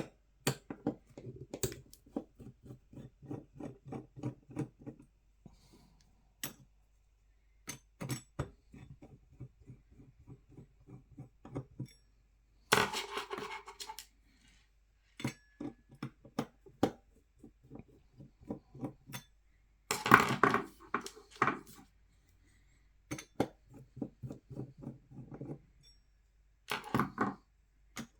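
Screwdriver and metal and plastic parts being handled while a computer power supply is taken apart: runs of rapid ticking, about four a second, and several louder clinks and clatters.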